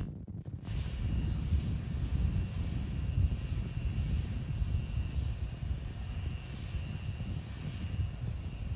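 Steady low rumble with a faint, steady high whine above it. The higher part cuts out briefly just after the start.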